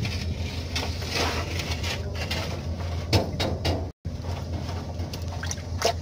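Steady low machinery hum with scattered clinks and knocks of metal being handled. A sharp knock comes about three seconds in and another near the end, and the sound cuts out for a moment just before four seconds.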